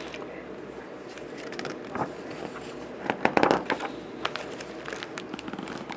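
Paper pages of a picture book being handled and turned: a short rustle about two seconds in, then a louder, longer rustle of paper from about three to four seconds, followed by a few light taps.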